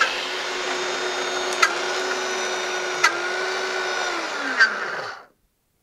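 Several high-speed countertop blenders (Domo, Magimix, Moulinex and Vitamix) running together, grinding peanuts into peanut butter. They are switched off one after another with a click of the controls at a time, and each motor winds down with a falling whine. The last one stops about five seconds in.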